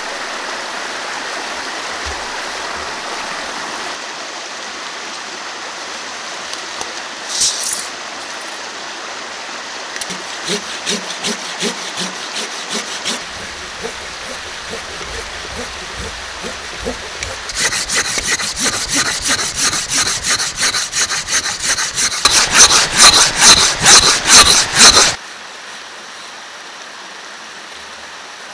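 Hand pruning saw with a curved blade cutting through a fallen tree trunk, back-and-forth strokes: a few scattered ones at first, then a long quick even run that grows louder and stops suddenly about three-quarters of the way through. A steady rushing stream runs underneath.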